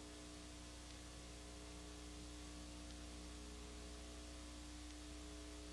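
Faint steady electrical hum with an even hiss underneath: the background noise of the recording, with no race sounds to be heard.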